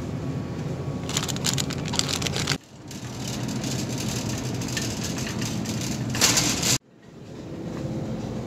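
Supermarket background noise: a steady low hum and hiss, with a shopping cart rattling as it is pushed about a second in. The sound cuts off abruptly twice.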